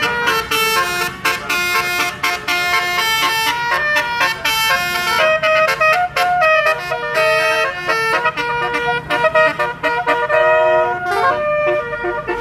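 Bus telolet horn, a multi-trumpet melody horn, playing a song tune note by note: loud held and short notes stepping up and down in pitch with brief breaks between phrases, and a downward slide near the end.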